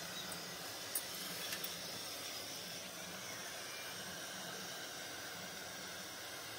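Steady hiss, with a couple of light clicks about a second in as a leaf cup is handled in the wire holder over the steaming pot.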